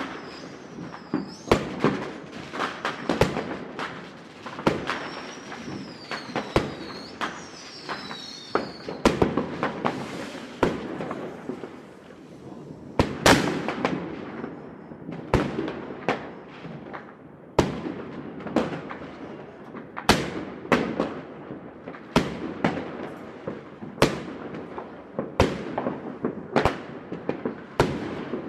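Fireworks going off over a city: many sharp bangs at irregular intervals, each with an echoing tail. A wavering high whistle rises and falls over roughly the first nine seconds.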